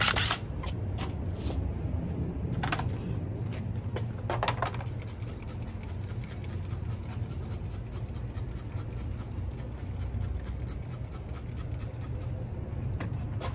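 A few short squirts of degreaser from a small bottle onto a quad's plastic skid plate, over a steady low mechanical rumble.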